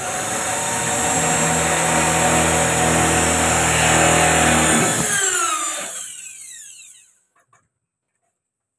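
Corded electric drill running at full speed, then released about five seconds in and spinning down with a falling whine until it stops.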